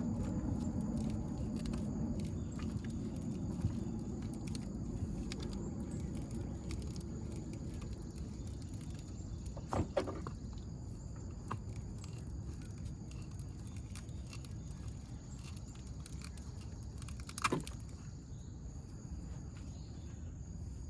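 Faint clicks and scrapes of hand tools and metal working an old battery terminal off a thick copper battery cable, with two short, louder scrapes about ten seconds in and again near the end.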